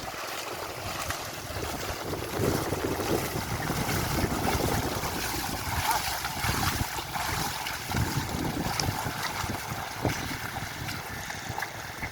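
Wet mud and water sloshing and splashing irregularly as oxen drag a plough through a flooded field, with wind buffeting the microphone.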